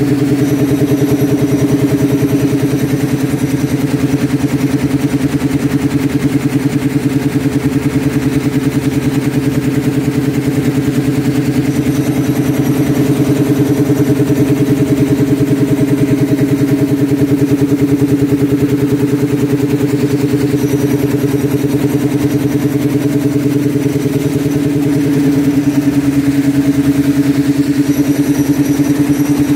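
Tractor-driven, belt-driven reciprocating air compressor and its power source running steadily, with a fast, even pulse. It rises slightly in level near the end.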